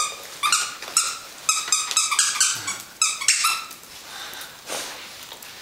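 Rubber squeaker in a dog toy squeaking over and over in quick clusters as puppies chew and tug at it, each squeak a short, high, steady-pitched squeal.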